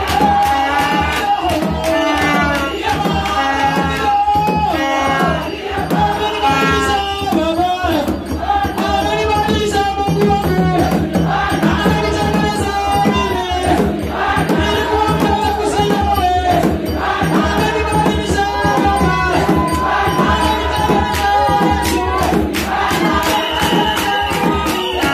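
Loud group singing of an African worship song over steady percussion keeping a regular beat.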